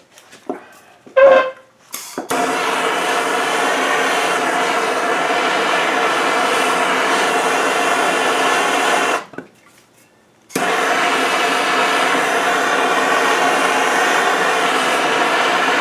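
A few hammer taps on the seized part, then a heating tool blowing with a loud steady roar to heat the stuck threaded part free. The roar cuts off abruptly about nine seconds in and starts again a second and a half later.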